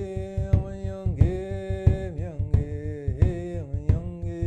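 Outro music: a melody of long held notes that slide from one pitch to the next, over a steady drum beat.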